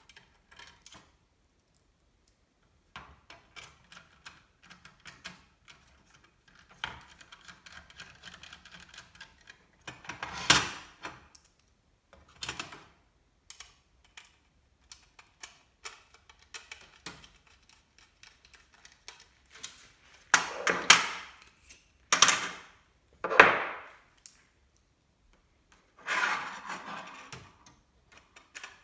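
Hands handling computer parts: scattered small clicks and taps, with louder rustling scrapes about ten seconds in, a cluster of them around two-thirds through, and a longer one near the end.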